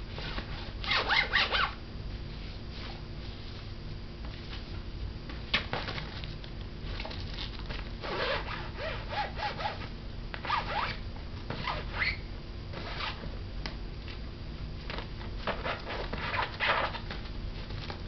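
A red lorikeet playing on a fabric play tent, making short rasping bursts: scattered through, with a longer cluster near the end.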